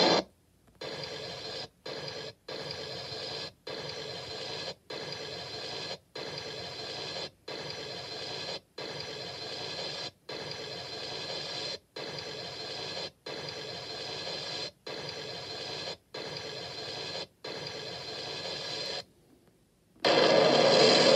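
Steady hiss like radio static, broken by brief dropouts about every second and a half, with a gap of about a second near the end.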